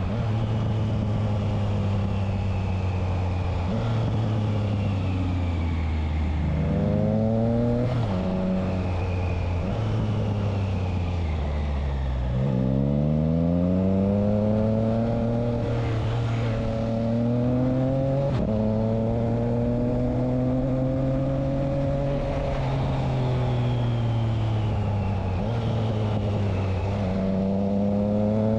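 Triumph Trident 660's inline three-cylinder engine through a Spark aftermarket exhaust with the dB killer fitted, riding under way. The engine note holds steady, rises under acceleration with sudden drops at upshifts, falls away as it slows about twelve seconds in, then pulls up again.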